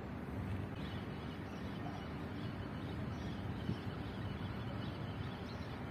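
Steady outdoor background noise, mostly a low even rumble with no distinct events.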